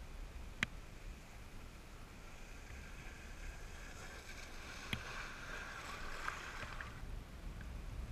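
A kiteboard planing past through choppy water: a hiss of spray that builds from about two seconds in and fades out near the end, over a low rumble of water against the camera. Two sharp ticks, one near the start and one midway.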